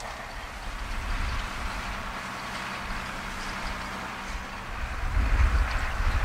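Ford New Holland 7840 tractor's six-cylinder diesel engine running steadily as it pulls a Fella rotary rake through cut grass. About five seconds in, a low rumble grows louder and more uneven.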